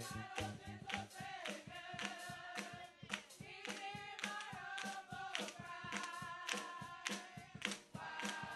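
Congregation clapping hands in a steady rhythm, about three claps a second, with voices singing along.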